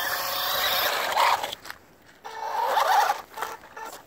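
Electric RC buggy's motor whining as it drives, its pitch rising and falling with the throttle. It cuts out about a second and a half in, whines again briefly, and a few short clicks follow near the end.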